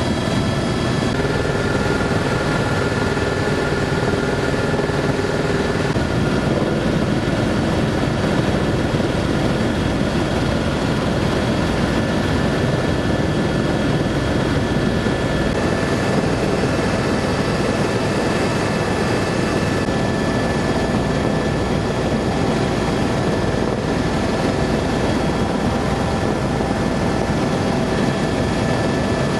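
Helicopter in flight heard from inside the cabin: a loud, steady engine and rotor drone with constant whining tones over it.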